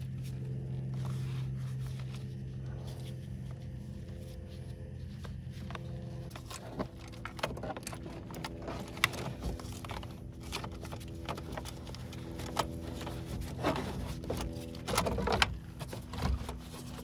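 Clunks, clicks and scrapes of a car battery being set into its engine-bay tray and its terminals and hardware handled, over a steady low hum from a machine running nearby.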